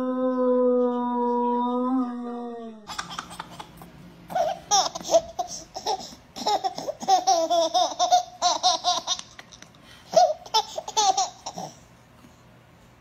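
A steady low humming tone held for about three seconds, sliding down and stopping. Then a baby laughing in repeated bursts of high giggles and squeals until near the end.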